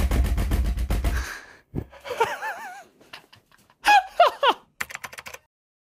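Corsair K70 OPX optical keyboard's spacebar being hammered rapidly with a fist: a fast run of clacks over low thuds that stops about a second in. A man then laughs in bursts.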